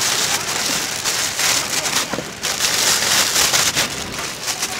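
Plastic bag and plastic wrapping crinkling and rustling close up as loose biscuits are scooped and packed into the bag, a dense run of crackling without a break.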